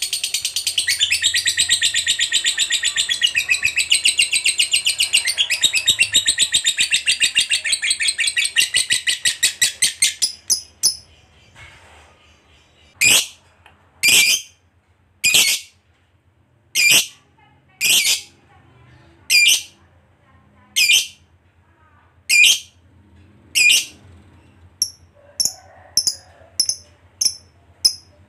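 Lovebird's long, rapid chattering trill (the 'ngekek'), running unbroken for about the first ten seconds. It then breaks into single sharp high calls, about one every second and a half, and ends with a quick run of short chirps.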